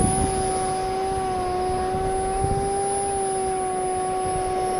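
Steady whine of the RC A-10 model's two electric ducted fans in flight, holding an even pitch with a slight waver.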